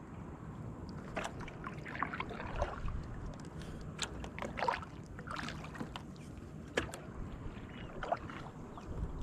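Kayak paddle strokes: the blade dipping into the water and splashing irregularly every second or so, with dripping from the paddle.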